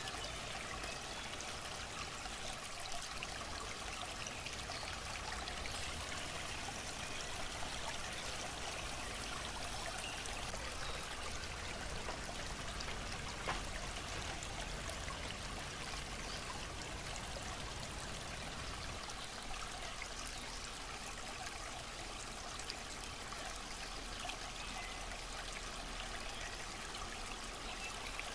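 Steady rush of running water from a small stream, even throughout with a few faint ticks.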